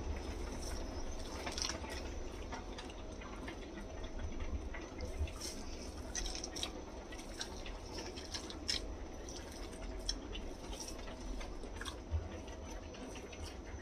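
A bare hand kneading and squeezing a moist minced-chicken, pea and chana dal kabab mixture: soft, wet squelches and small irregular clicks, over a faint steady low hum.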